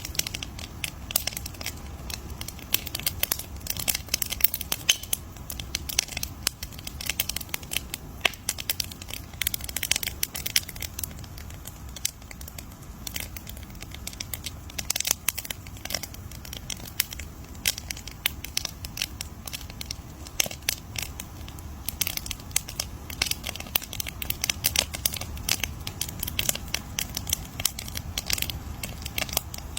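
Wood fire crackling and popping: dense, irregular sharp snaps over a low steady rumble of the flames.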